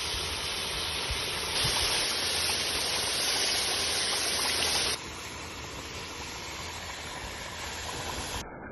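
Chicken pieces boiling in their juices in a karahi over a wood fire, a steady bubbling hiss. It grows louder about a second and a half in, then drops abruptly to a quieter level about five seconds in.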